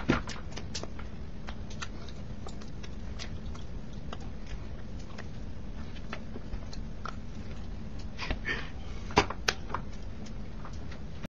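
Steady low room hum with scattered soft clicks and taps, a few sharper ones near the start and again about eight to nine and a half seconds in; the sound cuts off abruptly just before the end.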